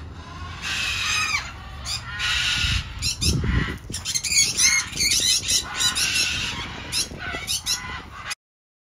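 Parrots squawking and screeching, many harsh calls in quick succession; the sound cuts off abruptly near the end.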